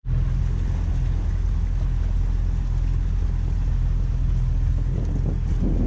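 Small boat's engine running steadily, an even low hum.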